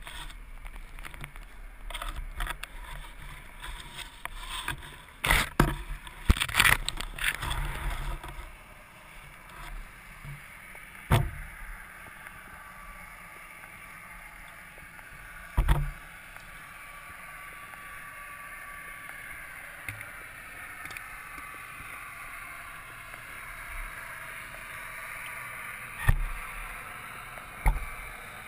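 Underwater sound through a camera housing on a speargun: a quick flurry of knocks and clicks for the first several seconds, then a steady hiss broken by a few single thumps.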